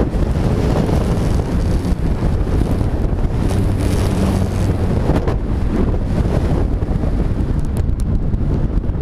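Wind rushing over the microphone of a camera mounted on a flying kite, a steady heavy rumble with a few brief gusts around the middle and near the end.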